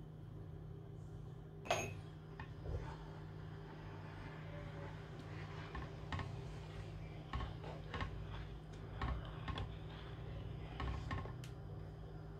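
A black ladle stirring thick puréed pumpkin soup in a pot, giving a run of soft scrapes and wet squelches in the second half. There is a sharp clink about two seconds in, and a steady low hum underneath.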